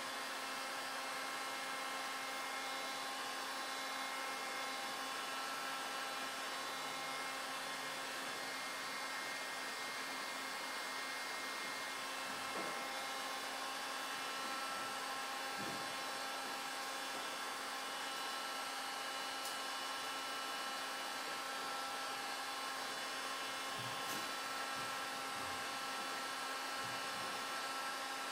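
Steady hiss with a constant low hum and several thin, steady high whining tones. A few faint knocks come about halfway through and again near the end.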